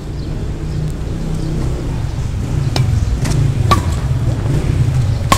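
Badminton racket strings striking a shuttlecock in a rally: sharp clicks, three in quick succession near the middle and one more near the end. Under them runs a steady low rumble.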